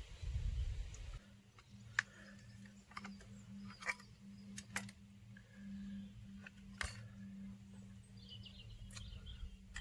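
Scattered light clicks and taps of tools and metal parts as the carburettors are worked loose from a 1989 Honda CBR600, over a faint steady low hum. Birds chirp faintly near the end.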